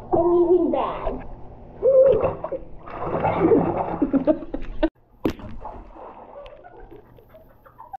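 Hands splashing and sloshing water in a filled bathtub, with a wordless voice over the first second or two. The sound cuts off abruptly about five seconds in, followed by a single click and quieter water sounds.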